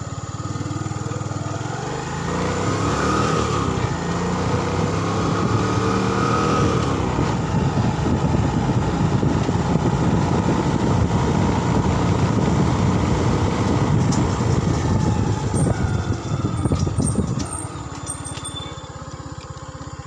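Motorcycle engine pulling away from idle, its pitch rising about two seconds in, running at speed with a steady rushing noise, then slowing and dropping back to a lower, quieter running near the end.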